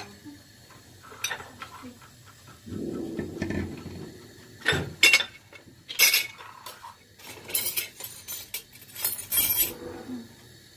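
Metal spoon clinking and scraping against a ceramic plate while a stuffed pepper is served and handled, with a cluster of sharp clinks in the second half.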